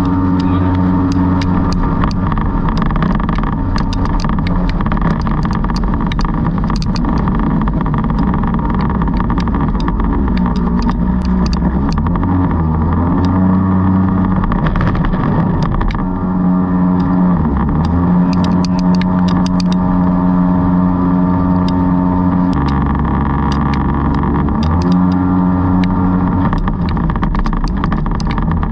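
Jet boat engine running under way, its pitch shifting up and down several times, with frequent sharp clicks over it.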